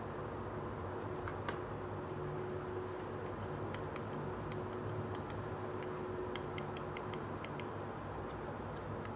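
Small plastic toy pieces being handled, giving light clicks and taps, one about a second and a half in and a run of them from about four seconds in, over a steady background hum.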